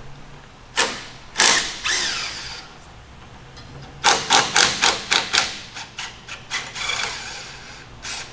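Cordless impact wrench hammering a sway-bar end-link bolt tight in short trigger bursts: two longer runs in the first few seconds, then a quick string of about six short bursts, around four a second, about halfway through, and a few fainter ones after.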